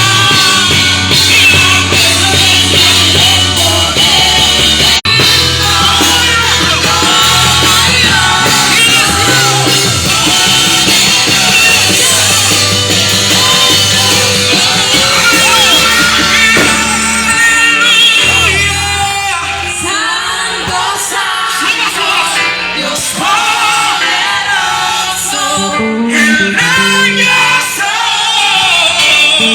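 Live church worship band playing, with drum kit and steady bass notes under singing.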